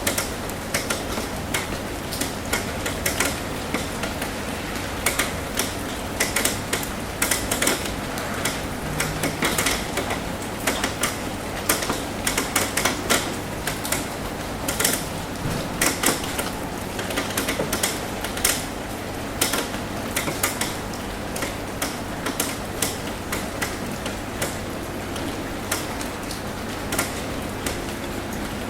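Raindrops tapping on a metal roof: many irregular sharp taps over a steady rain hiss.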